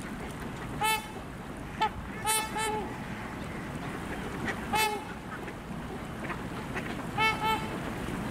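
Swans calling from open water among ice: several short honks, some in quick pairs, over a steady rushing background.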